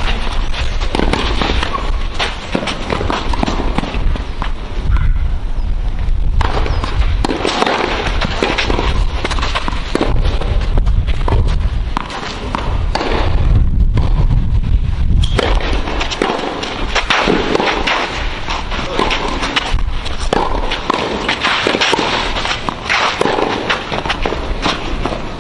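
Tennis being played on a clay court: repeated sharp racket hits on the ball during rallies, over a steady low rumble.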